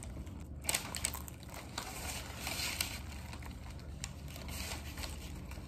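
Paper wrapping on a deli sandwich rustling and crinkling as it is handled and bitten into, with scattered light crackles and a short burst of rustling about halfway through.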